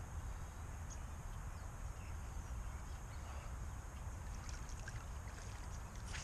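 Shallow lake water lapping and trickling around the legs of a wading angler, over a steady low rumble, with a few faint ticks.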